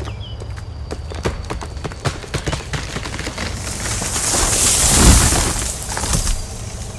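A felled tree going over: a series of sharp cracks as the trunk gives way, a rising rush of branches through the air, and a heavy thud as the trunk hits the ground about five seconds in, followed by a few snaps of breaking branches.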